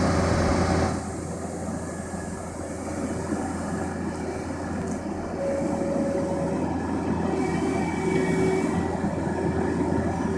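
John Deere skid steer's diesel engine running steadily with a low rumble, louder for the first second, then dropping and slowly building again.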